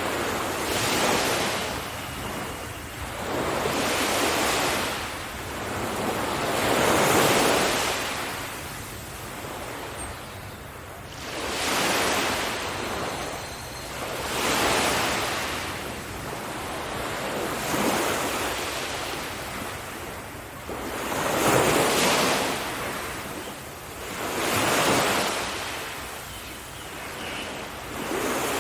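Sea waves breaking on a beach, one after another about every three seconds, each swelling and fading away.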